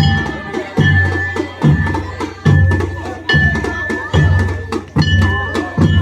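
Traditional folk music: a deep drum struck in a steady beat, about five strokes every four seconds, with lighter strokes between them and a high held note over the top.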